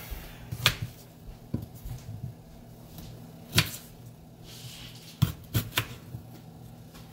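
Small kitchen knife scraping and peeling the skin off a fresh ginger root over a wooden cutting board, with a few sharp clicks and knocks, the loudest about three and a half seconds in and three close together near the end.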